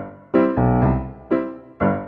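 Background music: chords struck about twice a second, each dying away before the next, with one chord held a little longer about half a second in.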